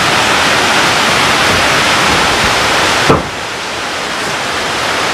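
Heavy rain pouring down with a steady loud hiss. About three seconds in there is a short knock, and the sound turns suddenly quieter and duller, then slowly grows louder again.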